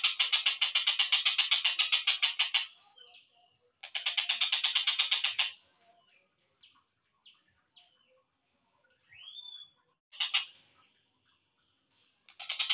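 Slowed-down recording of a tengkek buto (collared kingfisher) calling: a harsh, rapid run of repeated notes that stops about two and a half seconds in, returns for about a second and a half near the middle, and starts again near the end. Short single notes and one rising-then-falling call fall in the gaps.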